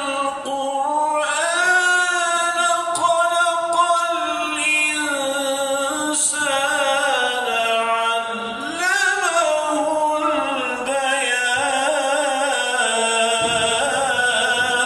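A man reciting the Quran in the melodic kıraat style: long drawn-out notes with ornamented turns, the line dipping and climbing around the middle of the phrase.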